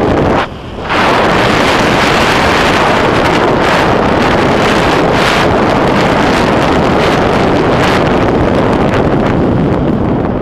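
Loud, steady wind rush buffeting the microphone of a bike-mounted action camera during a fast mountain-bike descent on asphalt. It drops away briefly about half a second in, then returns.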